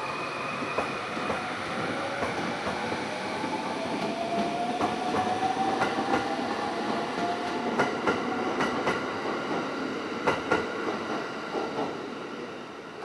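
A long electric commuter train running along the platform. Its motor whine rises in pitch, and the wheels click sharply over the rail joints several times near the end.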